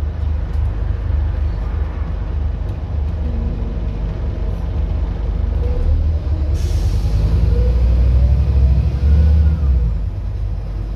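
Scania N230UD double-decker bus engine running under way, heard inside the bus as a heavy low rumble, with a rising whine about halfway through as it picks up speed. About two-thirds of the way in comes a sudden hiss of released compressed air that fades over a few seconds.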